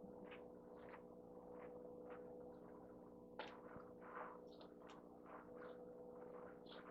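Near silence: a faint steady hum, with faint scattered small sounds.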